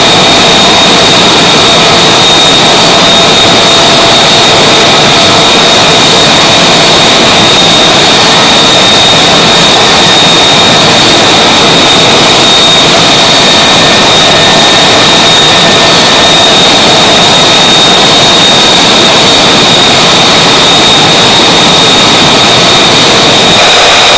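F-35A's single Pratt & Whitney F135 turbofan running steadily on the ground: a loud, even rush of air with a high, steady whine over it.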